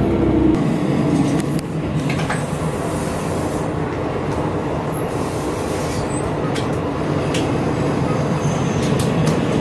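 Kyoto Tango Railway diesel railcar heard from inside the passenger cabin while under way. Its low engine hum drops away about half a second in, leaving a steady rumble of wheels on the rails with a few scattered clicks.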